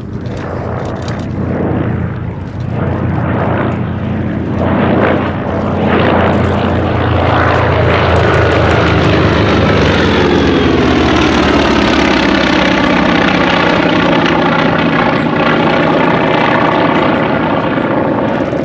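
Goodyear FG-1D Corsair's Pratt & Whitney R-2800 Double Wasp radial engine running at takeoff power as the fighter takes off. It grows louder over the first six seconds, then holds loud and steady, with a sweeping change in tone as the aircraft passes and climbs away.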